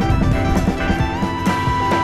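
Instrumental prog-rock / jazz-fusion jam used as background music. A held lead note slides up a little over a second in and then sustains over the band.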